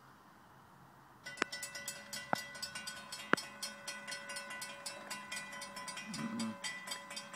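Railroad grade-crossing warning bell ringing rapidly and evenly, starting about a second in, signalling an approaching train. A few sharp clicks sound in its first two seconds.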